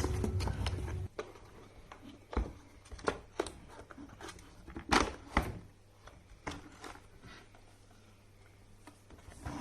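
Scattered sharp clicks and knocks, as of tools and parts being handled, about a dozen spread over several seconds with the loudest about five seconds in; background music cuts off about a second in.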